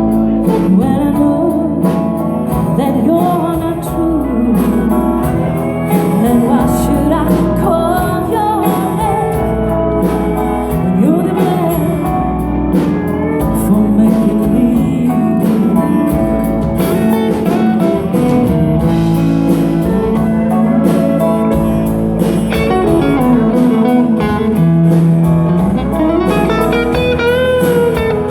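Live band playing a country-blues song: an electric guitar plays bending lead lines over bass and drums.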